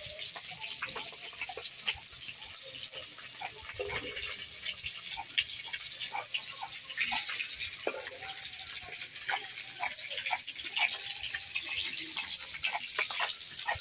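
Fish frying in hot oil in a karai: a steady sizzle, with scattered clicks and scrapes over it.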